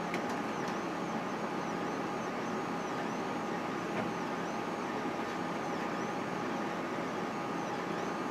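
Solidoodle 3 3D printer running a print: the steady whine of its stepper motors, with a pattern that repeats a little more than once a second as the print head goes back and forth over the small part.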